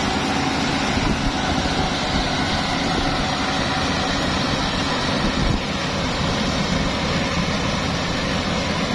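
Combine harvester running steadily during rice harvesting, a continuous engine drone with a slight drop in level about halfway through.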